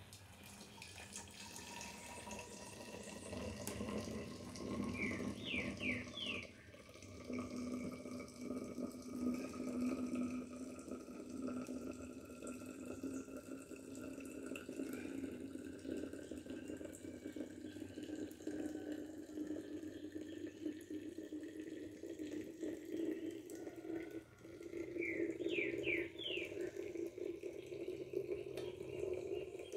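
Coffee trickling from a cone filter into a thermos flask as hot water is poured over the grounds: a steady pouring sound whose pitch rises as the flask fills, with a short break about three-quarters of the way through. A few quick chirps sound twice, once near the start and once near the end.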